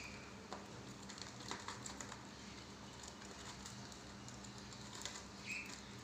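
Budgerigars in an aviary: scattered light clicks and taps, and one short high chirp near the end.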